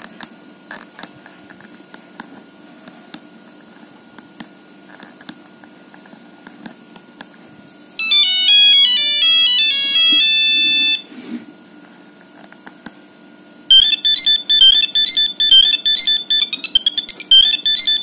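Nokia 5210 monophonic ringtone previews. First there are faint clicks of the keypad buttons. About eight seconds in, one ringtone plays as a fast run of beeping notes for about three seconds and stops. About fourteen seconds in, a second ringtone starts with its own rapid beeping melody.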